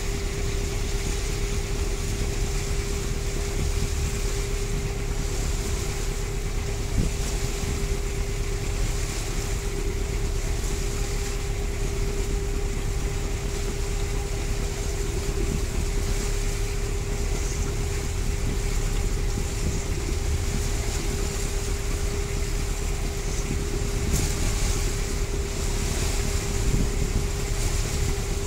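Boat engine running steadily under way, a constant low drone with one steady tone, over the continuous wash of the churning wake and wind buffeting the microphone.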